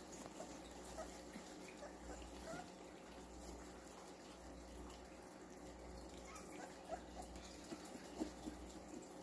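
Puppies play-fighting, giving a few faint short squeaks over a steady low hum.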